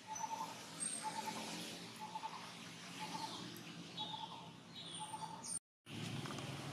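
Forest birds calling: a short pulsed call repeats about once a second, with higher chirps and whistles between. The sound drops out for a moment near the end.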